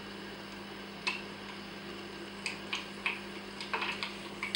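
Black mustard seeds spluttering in hot mustard oil: a handful of sharp, sparse pops, a lone one about a second in, then coming more often toward the end.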